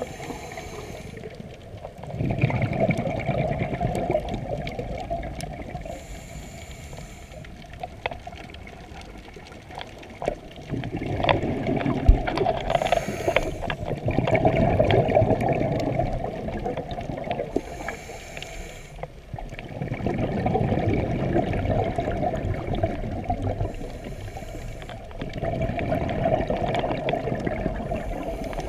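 Scuba diver breathing through a regulator underwater: a short hiss of each inhale about every six seconds, followed each time by several seconds of rumbling, gurgling exhaled bubbles.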